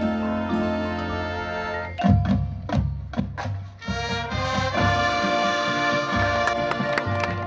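Marching band with brass and percussion playing: held brass chords, then about two seconds in a run of loud drum and percussion hits, and from about four seconds in the full band playing chords over the percussion again.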